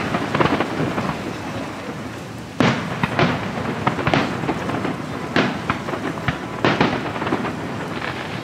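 Aerial firework shells bursting in a string of booms, each echoing with a rumble, one right at the start and then a steady run of them from about two and a half seconds in.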